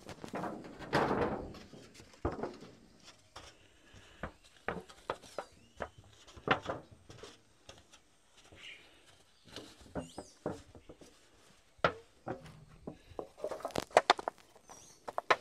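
Scattered footsteps and light handling knocks, with a rustle about a second in and a quicker run of clicks and knocks near the end.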